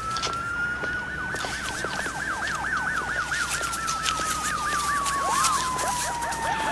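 Emergency sirens sounding together: a slow wail that rises and then gradually falls, with a fast warbling yelp sweeping up and down over it several times a second.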